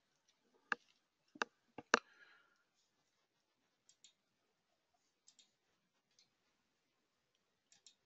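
Computer mouse clicking: a few sharp single clicks, four of them within the first two seconds, then faint ones spread out, the last just before the slide advances. In between it is very quiet.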